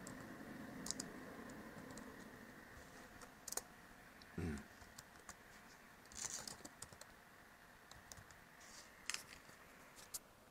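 Laptop keyboard keys being typed on, faint, in irregular scattered keystrokes. A dull thump about four and a half seconds in.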